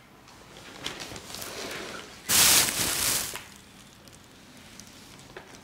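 Liquid dye splashing in a plastic bowl as a rubber bulb dispenser is dipped in to fill. It is loudest for about a second midway and quieter around it.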